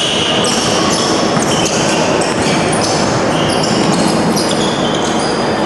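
Basketball game sound in a large gym: a ball dribbled on the court with players' sneakers squeaking and shuffling, all echoing in the hall.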